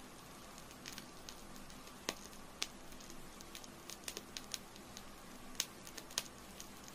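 Candle burning, its wick giving irregular sharp crackles and pops, about a dozen scattered through several seconds, over a faint steady hum.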